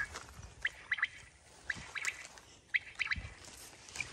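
Small birds calling in short high chirps, a few every second, with a soft low thump about three seconds in.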